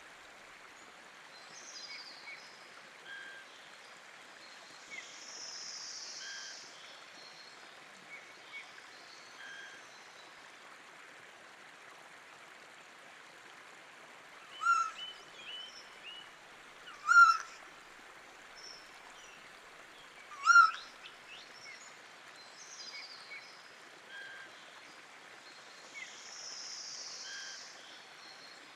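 Steady rush of a small river or stream, with birds calling now and then over it. Three louder, sharp bird calls stand out in the middle, a few seconds apart.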